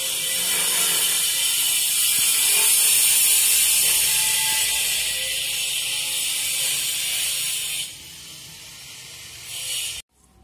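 A loud, steady, high-pitched rasping drone. It drops away about eight seconds in, swells briefly, then cuts off abruptly.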